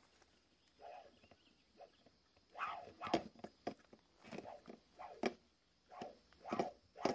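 Worn bearings of a Fujitsu mini-split's condenser fan motor rasping as its shaft is flicked round by hand, in short bursts, sparse at first and then about twice a second.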